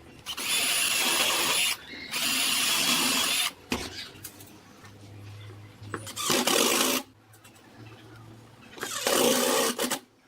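A small electric power tool motor run in short bursts: two runs of about a second and a half with a steady high whine, then two shorter, rougher bursts about six and nine seconds in.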